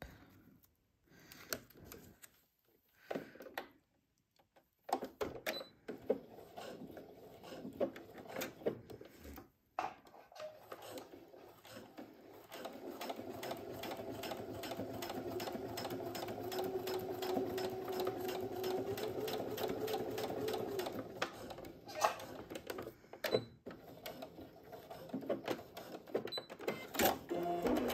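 Brother Innovis F420 computerized sewing machine stitching a curved seam through clear PVC: short runs of needle strokes broken by pauses and handling clicks, then a long steady run with an even motor hum, stopping a few seconds before the end, followed by a few clicks.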